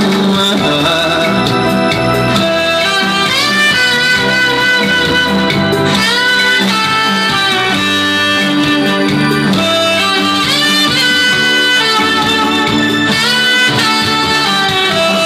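Music: an instrumental passage with a lead melody whose notes slide upward in phrases every three or four seconds, over steady accompaniment.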